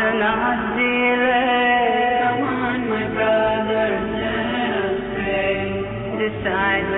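Islamic vocal chanting: a voice holding long, wavering melodic notes that glide from pitch to pitch.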